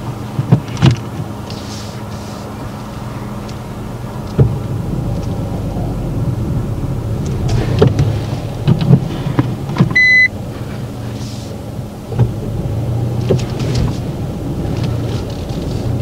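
Car engine idling, heard from inside the cabin, with scattered clicks and knocks from the controls. A single short electronic beep sounds about ten seconds in.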